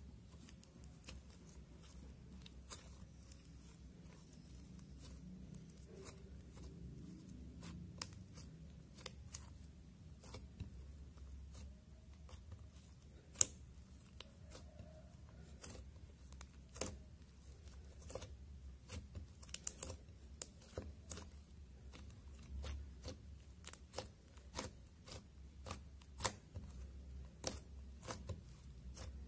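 Slime being kneaded, stretched and poked by hand, giving faint, irregular sticky pops and clicks as air pockets burst, coming thicker in the second half, with one louder snap about a third of the way in.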